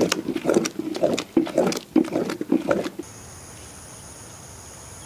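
Thick jackfruit pulp being stirred with a wooden paddle in a large metal pot, with irregular wet squelching and slapping and sharp knocks of the paddle. After about three seconds it cuts off suddenly, leaving a steady high insect drone of two even tones.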